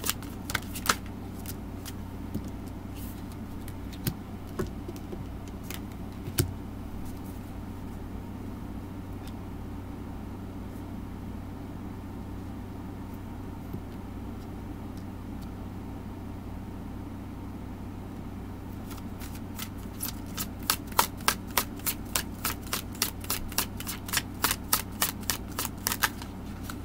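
Tarot cards being shuffled and handled: a few scattered card taps in the first seconds, then a quick run of card snaps and flicks through the last third. A steady low hum sits underneath.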